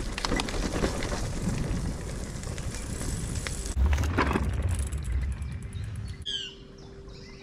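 Brompton folding bike rolling along a dirt woodland path, with small knocks and rattles. About four seconds in it crosses a wooden boardwalk bridge with a louder low rumble that fades as it rides away, and a bird chirps a few times near the end.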